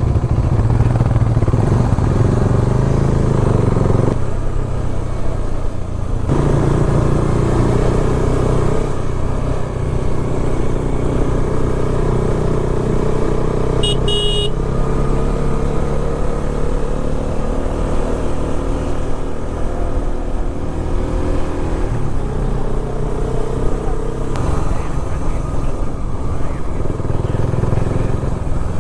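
Motorcycle engine running on the move, its note dipping about four seconds in, picking up again two seconds later, then slowly climbing. A brief high beep sounds near the middle.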